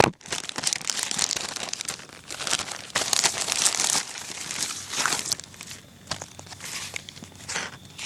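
Packaging crinkling and rustling in irregular bursts as items are taken out of a shipping parcel, with a short tearing sound and a sharp click right at the start.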